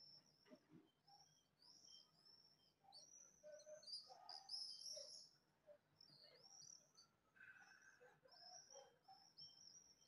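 Swifts calling: faint, short, shrill high-pitched calls repeated in quick series, with a few softer, lower notes between them.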